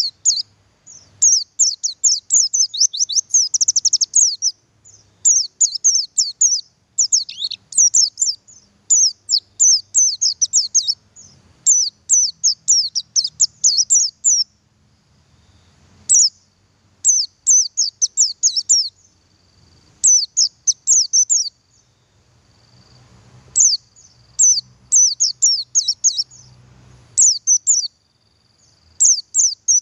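Male buxtoni white-eye (pleci buxtoni) calling: fast runs of thin, high chirps in bursts a second or two long, separated by short pauses, with longer breaks near the middle and about two-thirds of the way through.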